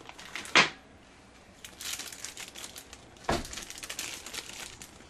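Packaging being handled: crinkling and rustling of plastic wrap, with a sharp knock about half a second in and a heavier thump a little past the middle.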